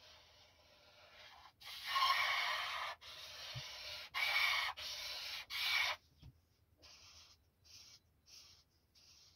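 Black felt-tip marker rubbing back and forth on paper while shading in a large area. A run of loud strokes starts about two seconds in and lasts about four seconds, followed by shorter, fainter strokes.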